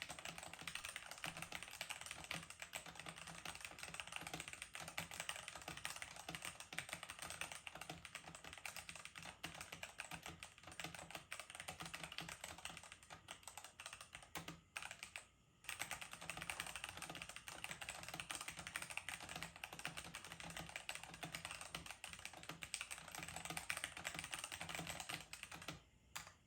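Continuous fast typing on a GamaKay K66 60% mechanical keyboard with Gateron Brown tactile switches, ABS keycaps and an acrylic case: a dense run of light key clicks, with a brief pause about fifteen seconds in.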